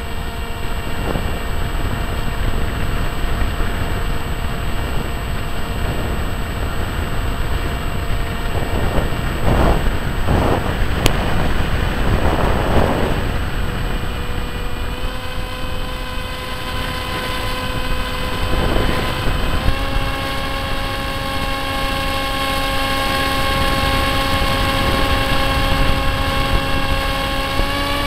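Electric motor and propeller of a HawkSky RC plane whining steadily over wind rush, heard from the camera on board. The whine steps up in pitch about halfway through and again about two-thirds of the way in as the motor speeds up, with a few gusts of wind noise before that.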